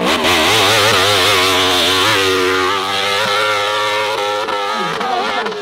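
Dirt bike engine revving hard as the bike climbs a steep dirt hill, its pitch warbling rapidly up and down.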